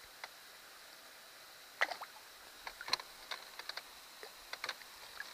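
Faint, irregular drips and small splashes of water from a hand dipping and swishing in lake water, mostly from about two seconds in.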